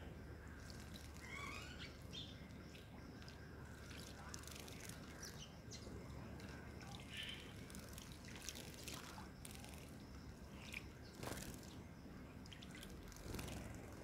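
Sparrows bathing in a shallow dish of water, with scattered light splashes and drips from their wings.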